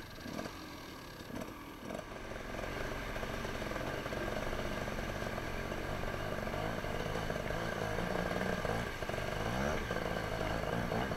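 Dirt bike engine heard from on board the bike. It is quieter for the first two seconds, then runs louder and steady as the bike rides on. Around nine seconds in, the revs rise and fall.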